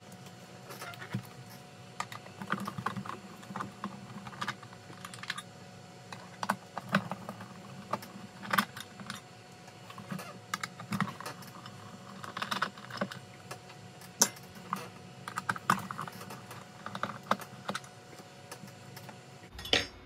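Irregular small clicks and taps from hands handling an opened plastic e-bike battery case and its cell pack, with one sharper click a little past the middle.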